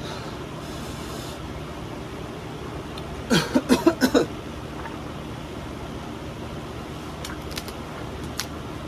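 Steady fan-like room hum, broken about three seconds in by a quick run of four or five short voiced outbursts from a person, each falling in pitch. A few faint clicks follow near the end.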